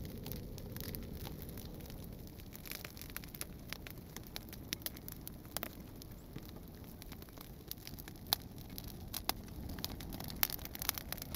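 Campfire crackling: irregular sharp pops over a low rumble, the pops coming thicker in the last few seconds.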